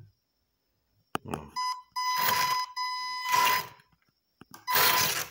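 Remote-control truck's electric motor and drivetrain run in two short bursts, a whirring with a steady high whine over it; a click comes just before the first burst.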